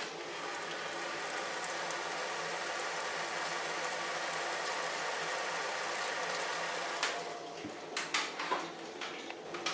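Wort recirculated by the mash pump splashing steadily from the return hose onto the grain bed in the brew-in-a-bag kettle, with a faint pump hum underneath. The splashing drops away about seven seconds in, leaving a few small knocks.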